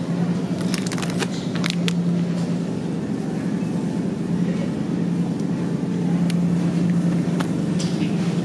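Groceries being handled in a wire shopping cart: plastic packaging crinkling, with several sharp clicks and rattles bunched in the first couple of seconds and two more later. A steady low hum runs underneath.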